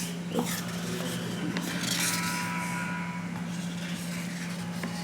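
Quiet kitchen handling sounds: a few soft knocks and a brief rustle about two seconds in, over a steady low hum.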